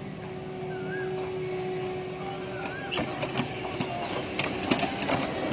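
Backhoe loader's diesel engine running steadily under digging, with knocks and clatter from about three seconds in as the bucket works the soil. Short wavy chirps sound twice above the engine.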